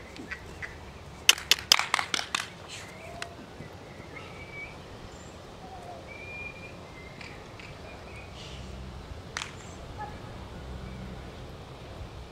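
A quick run of about eight sharp cracks about a second and a half in, then a few short bird chirps over a steady outdoor background, and one more single crack near the end.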